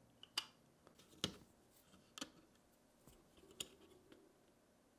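Light clicks and taps of small 3D-printed PLA parts being handled as a throw ring is pressed onto a toy boat's cabin roof: four sharp clicks roughly a second apart, with fainter ticks between.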